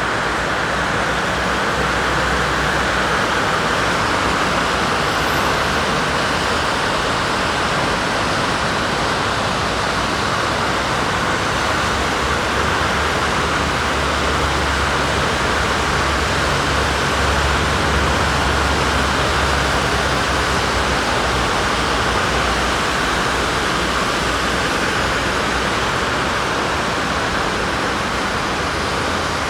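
Steady street traffic noise: an even, unbroken wash of road sound, with a low rumble that swells in the middle.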